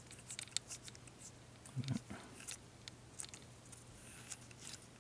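Faint scattered clicks and light taps from the plastic CD optical pickup assembly being handled, with a brief soft low sound just before two seconds in, over a steady low hum.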